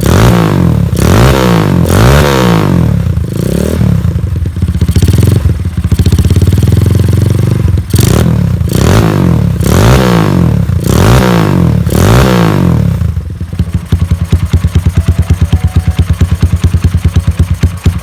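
Honda Tiger 2000's single-cylinder four-stroke engine breathing through an aftermarket PDK exhaust, blipped again and again about once a second with one longer held rev in the middle. About thirteen seconds in it drops back to a steady, pulsing idle.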